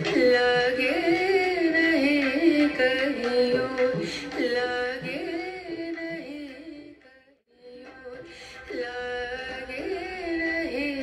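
Background music: an Indian-style song with a singing voice over instruments. It fades out briefly about seven seconds in, then starts again.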